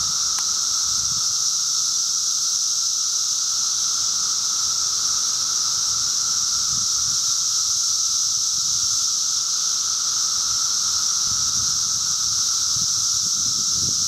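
Dense chorus of Brood X periodical cicadas in a tree, a loud unbroken drone made of a high buzzing band with a lower steady hum beneath it.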